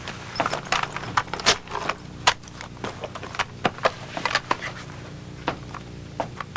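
Handling noise: scattered light clicks and rustles as a small handheld electronic device is fiddled with, over a low steady hum.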